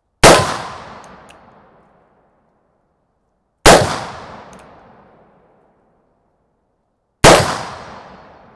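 Three shots from a brass-frame reproduction 1858 Remington New Model Army black-powder percussion revolver, about three and a half seconds apart, each a sharp report that rings out and dies away over a second or so. Faint clicks of the hammer being cocked follow the first two shots.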